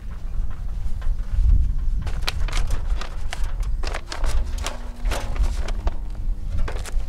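Aluminium stepladder knocking and rattling as it is handled and set up, a string of irregular sharp knocks over a steady low rumble.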